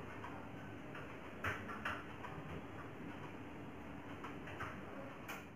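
Faint, scattered light taps and clinks as dried mixed herbs are shaken out of a small glass bowl over chickpea mixture in a glass mixing bowl, the clearest about one and a half and two seconds in.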